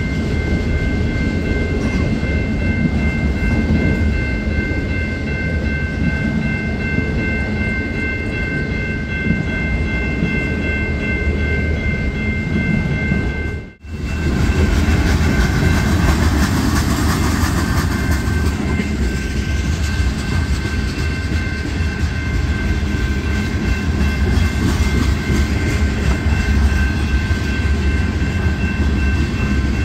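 Freight train cars passing close by, wheels rumbling and clattering over the rail joints, with a steady high whine over the rumble. Autorack cars go by first, then covered hoppers after the sound cuts out for a moment about halfway through.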